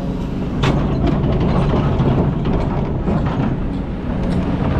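Kobelco hydraulic excavator's diesel engine running steadily under load, with stones and gravel clattering and knocking against the steel bucket as it digs into a gravel bank. The knocking starts about half a second in.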